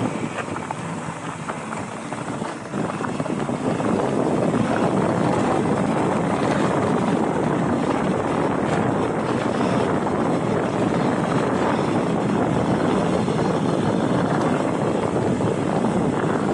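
Mountain bike riding along singletrack, with a steady rush of wind and tyre and trail noise on the rider's microphone. It grows louder about three seconds in and then holds.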